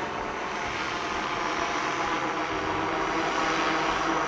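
Quadcopter drone hovering overhead, the steady buzz of its electric motors and propellers growing slightly louder.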